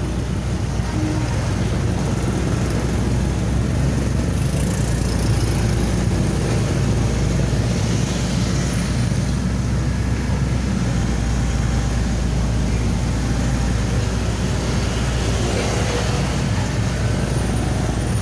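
Excavator diesel engines running steadily, a loud low engine sound that holds level throughout.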